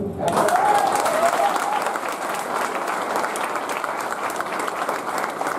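A large audience applauding in a hall, many hands clapping at once.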